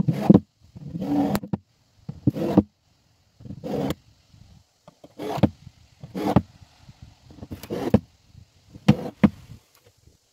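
Irregular hollow knocks and bumps on the canoe's aluminium hull, about ten over the stretch, some with a brief ring, as the hull is worked on from underneath to set screws in the patch holes.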